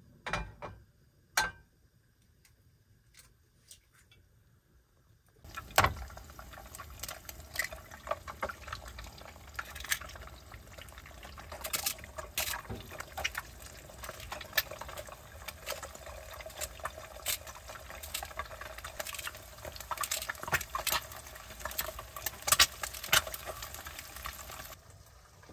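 Eggs frying in oil in a non-stick pan, sizzling and crackling with frequent sharp pops; the sizzle starts about five seconds in and stops shortly before the end. Before it there are two sharp knocks.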